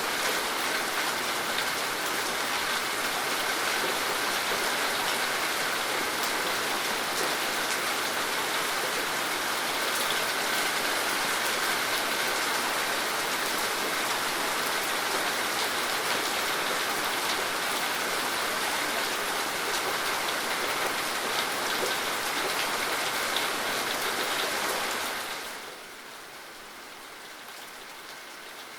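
Steady, dense rainfall, a recorded rain ambience, falling to a noticeably softer level about 25 seconds in.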